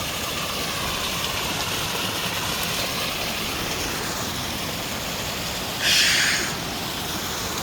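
Steady rush of water from a swollen river, with a brief burst of hiss about six seconds in.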